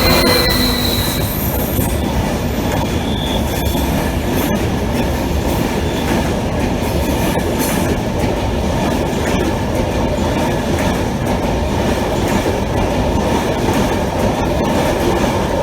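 A train running past close by: a loud, steady rumble of wheels on rails with scattered knocks, and a thin high wheel squeal that fades out in the first second.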